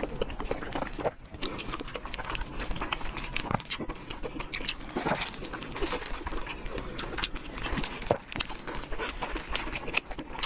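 A person chewing food close to the microphone, with a dense run of many small clicks and crackles from the mouth.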